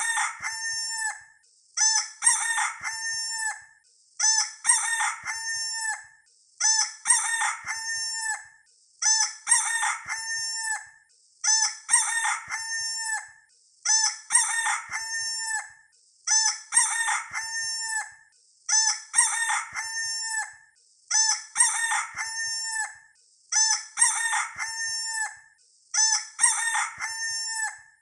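A rooster crowing, the same crow looped over and over about every two and a half seconds.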